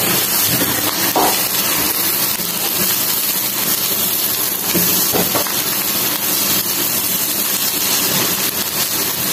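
Spiced onions, tomatoes and grated potato sizzling in hot oil in a small nonstick frying pan while being stirred with a silicone spatula; the sizzle is a steady hiss.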